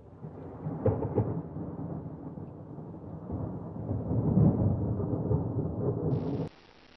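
Dull, muffled low rumble with two sharper jolts about a second in and a swell near the middle, cutting off abruptly about six and a half seconds in.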